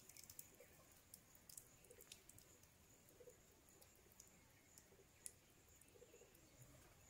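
Near silence with a few faint, scattered clicks from eggplants being cut, over a faint steady high-pitched hum.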